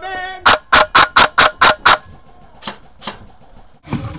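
Airsoft gun firing a rapid string of seven sharp semi-automatic shots, then two more single shots a moment later. A heavier thump follows near the end.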